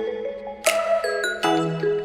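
Background music: a gentle tune of bell-like mallet notes over a held bass tone, with a brighter chime about two-thirds of a second in and another near the end.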